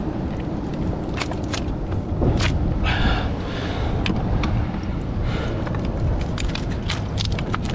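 Wind buffeting the microphone as a steady low rumble, over a scatter of sharp clicks and clacks as mussel shells knock and scrape together while gloved hands twist mussels off a cluster on a rock.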